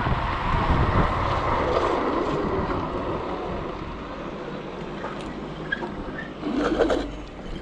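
Wind rushing over the microphone and tyre noise from an electric scooter rolling over asphalt, fading as the scooter slows down.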